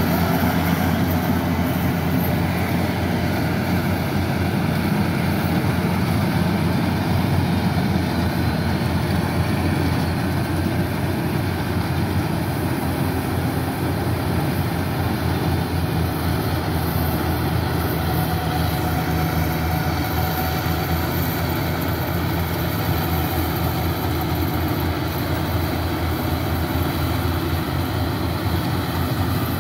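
Yanmar YH880 combine harvester's diesel engine running steadily while it harvests rice, a continuous low hum with no change in pace.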